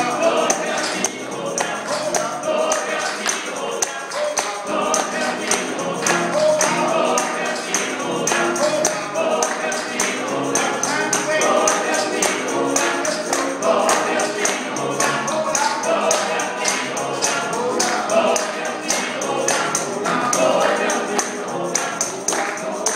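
Men's gospel chorus singing with a lead vocalist on a microphone, over a steady percussive beat.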